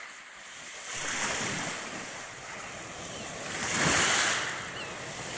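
Small sea waves breaking and washing up a shingle beach, with one louder wash about four seconds in.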